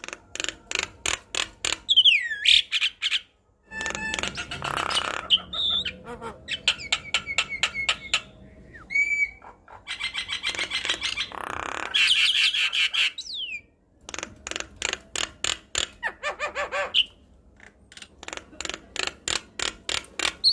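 Javan myna singing a long, varied song: quick trains of dry clicks and rattles, harsh rasping calls, and short whistled notes, some of them gliding down in pitch.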